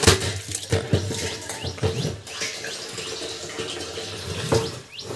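Water running from a hose pipe and splashing, with a faint steady hum underneath and a few knocks.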